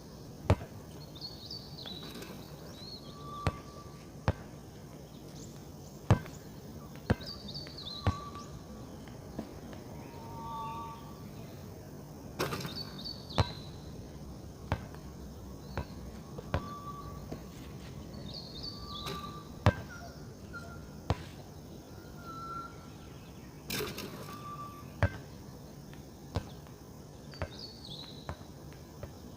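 Birds calling: a high, sliding, falling call repeated every five or six seconds, and short whistled notes lower down. Sharp single clicks fall irregularly among them, louder than the birds, over a low steady hum.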